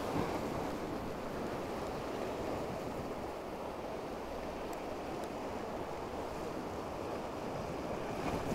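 Ocean surf washing steadily against the rocky shore, with some swell running.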